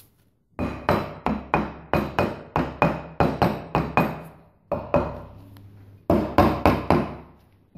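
A mallet striking a polished steel axe head to drive it down onto a new wooden handle: a rapid series of sharp knocks, about three a second, with a faint ring from the steel, pausing briefly a little past the middle before a last quick run of blows.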